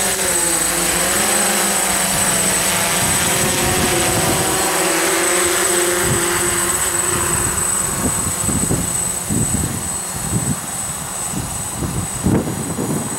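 DJI F550 hexacopter's six motors and propellers buzzing in hover, their pitch wavering up and down. In the second half the tone fades and irregular low rumbles come through.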